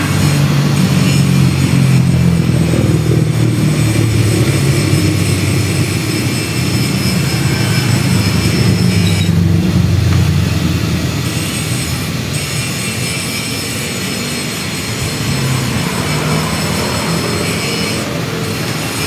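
Loud steady mechanical running noise with a low hum, louder for the first ten seconds or so and easing a little after.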